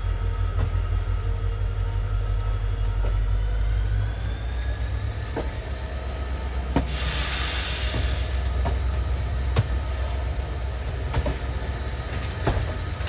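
A moving passenger train hauled by a WDP4B diesel locomotive: a steady deep hum of the locomotive, with a high whine that rises in pitch about four seconds in. There is a brief hiss lasting about a second near the middle, and wheel clicks over rail joints come every second or two.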